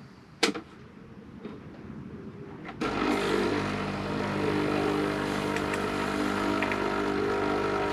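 A click, then the Dolce Gusto capsule coffee machine's pump starts suddenly almost three seconds in and runs with a steady buzzing hum while it brews a coffee.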